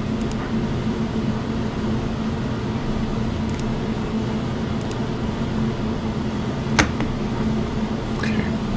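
Steady mechanical hum with a low droning tone, with one sharp click about two-thirds of the way through and a few faint ticks.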